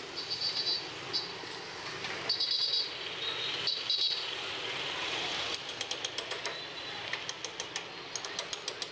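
Steady workshop background noise, with a few short high chirps early on and runs of rapid light clicks, about five a second, in the last few seconds.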